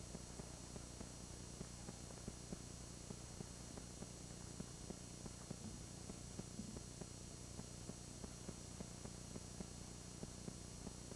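Steady low electrical hum and hiss of an old camcorder tape recording, with faint irregular clicks.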